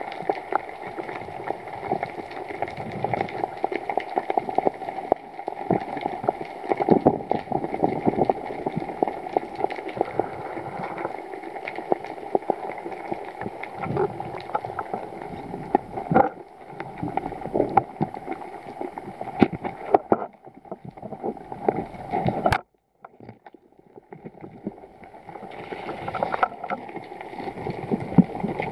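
Underwater sound picked up by a diving camera: a steady hum with constant crackling clicks over it. It cuts out suddenly for a second or so about three-quarters of the way through, then comes back fainter.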